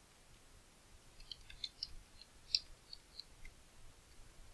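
Faint, irregular clicking of a computer keyboard and mouse, with a cluster of quick clicks in the middle.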